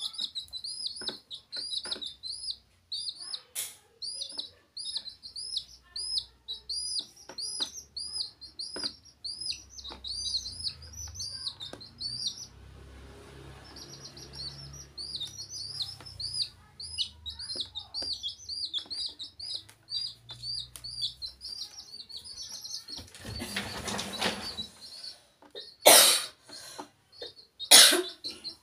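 Baby chicks peeping: a quick, steady run of high cheeps, a few a second, that pauses for a couple of seconds near the middle. Near the end come two sharp, loud knocks.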